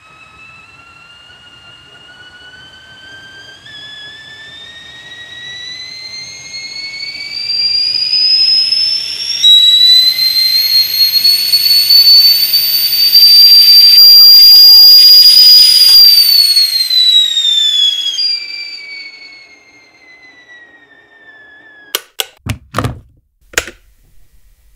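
Whistling kettle coming to the boil. The whistle starts faint and rises steadily in pitch and loudness, jumps higher about nine seconds in and whistles loudly for several seconds, then falls in pitch and fades. A few sharp clicks follow near the end.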